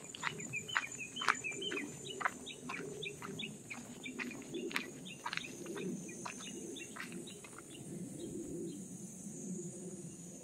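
Footsteps crunching along a gravel path, about two steps a second, easing off near the end, while small birds chirp in short, quick notes. A steady high whine runs underneath.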